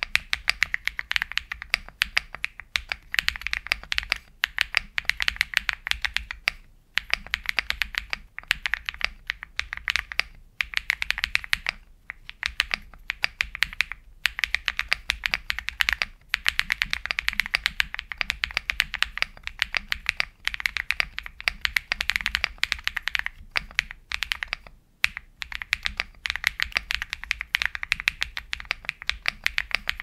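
Fast, continuous typing on a Weikav Lucky65 v2 mechanical keyboard with MMD Holy Panda V2 tactile switches, force-break-modded, under SA-profile keycaps. Keystrokes come in dense runs of a few seconds, broken by short pauses.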